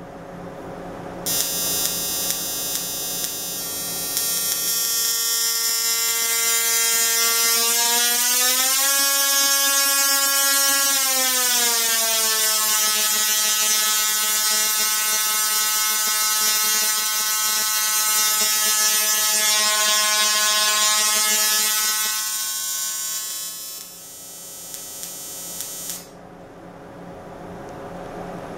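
oneTesla Tesla coil buzzing loudly as its sparks fire at a steady rate, a harsh tone with a pitch that glides up about a third of the way through, holds, then slides back down. The buzz fades and cuts off a few seconds before the end.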